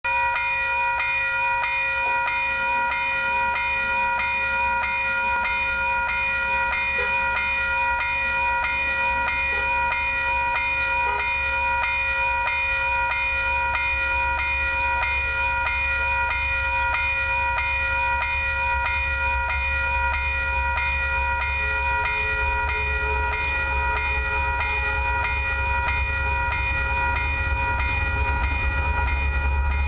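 Railway level-crossing bell ringing steadily in a fast, even rhythm while the crossing gates are down. A low rumble grows under it near the end.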